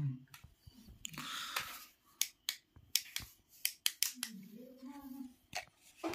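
Sharp plastic clicks and snaps from a black selfie stick being handled and unfolded, a quick run of them through the middle, with a short rustle about a second in.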